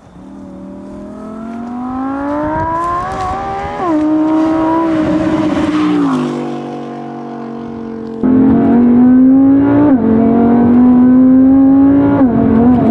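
Twin-turbo Audi R8, built to about 2000 hp, accelerating hard through the gears: the engine pitch climbs and drops at each upshift. It grows louder over the first four seconds, eases back and drops in pitch around six seconds, then comes in suddenly much louder just after eight seconds with two more climbs and upshifts.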